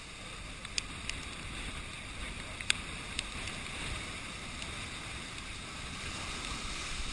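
Heavy storm surf from an approaching hurricane breaking and washing over rocks, a steady rushing with wind, muffled through a GoPro's waterproof housing. A few sharp clicks cut through, the loudest about three seconds in.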